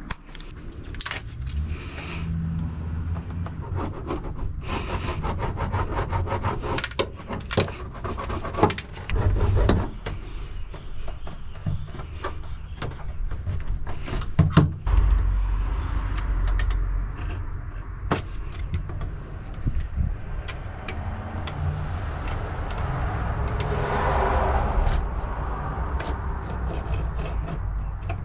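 Irregular knocks, clicks and scraping from hands-on work in a car's boot while sound deadener sheets are handled and fitted, with a longer stretch of scraping or rubbing near the end.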